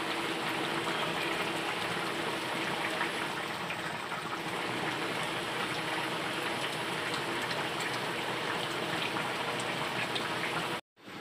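Chicken, mushroom and chestnut braise bubbling at a steady simmer in an open pan, an even crackling bubble and hiss, with the broth still thin and reducing. It cuts off suddenly near the end.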